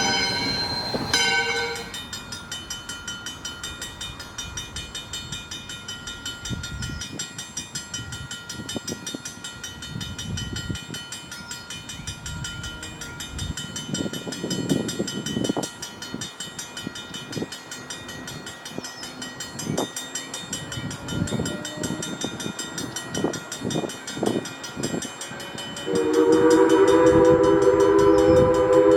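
Steam locomotive whistle, from ALCO 2-8-2 Mikado #40, sounds a short blast at the start and a long, loud chord that begins near the end and is held on. In between, the train runs by with a rapid rhythmic beat.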